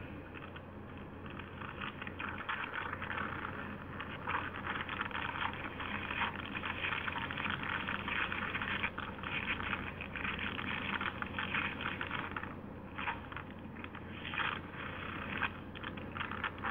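Crackling, hissy background noise of a low-quality, narrow-band audio recording, with a steady low hum underneath and no speech.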